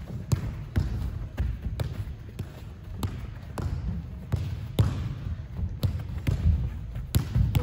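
Soccer ball struck and trapped again and again in quick passing and first touches on artificial turf: a run of sharp, irregular knocks, a couple or more a second.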